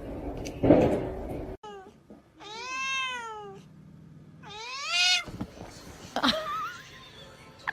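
A cat meowing twice: two long, drawn-out meows, the first rising and falling, the second rising. Before them, in the first second and a half, thumps and clatter that cut off suddenly.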